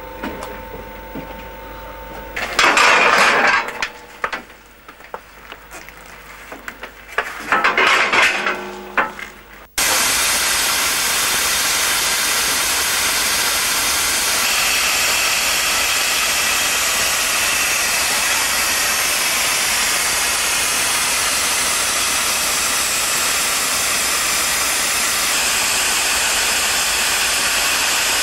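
Steam hissing steadily and loudly from low on the side of an NG15 2 ft gauge steam locomotive. It starts abruptly about ten seconds in. Before that, two brief louder bursts stand out over a quieter background.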